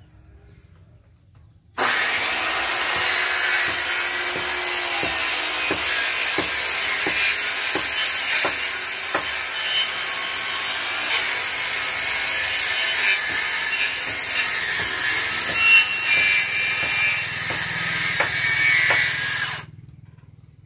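Handheld electric power tool cutting along a wooden plank: a steady loud running noise that starts suddenly about two seconds in and cuts off suddenly near the end.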